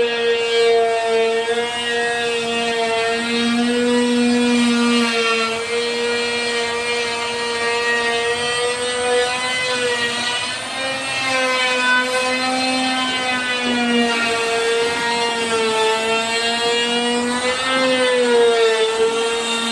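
Handheld electric wood router running at high speed and cutting. It is a steady high whine whose pitch dips slightly and recovers several times as the bit takes load.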